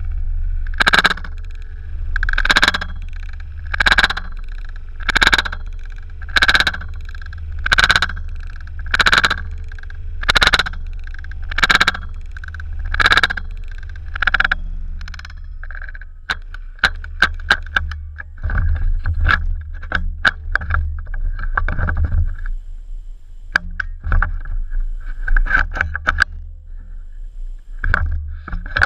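CZ858 rifle with a .22 LR conversion kit firing, about a dozen shots at a steady pace of roughly one every 1.3 seconds. Past the halfway point this gives way to a quicker, irregular run of sharper cracks and clicks, over a steady low rumble.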